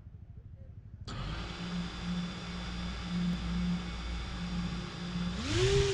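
T-Motor F60 Pro II 2700 kV brushless motors of an FPV racing drone spinning up as it is armed: a sudden steady electric whine at idle from about a second in, then rising in pitch as the throttle comes up near the end.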